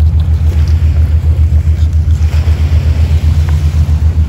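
Loud, steady low rumble that throbs evenly about five to six times a second, like an engine running.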